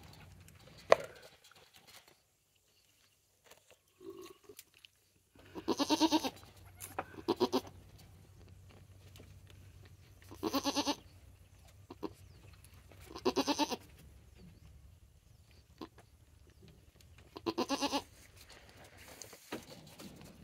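Goats bleating: about five separate bleats a few seconds apart, the first one long, with a short sharp knock about a second in.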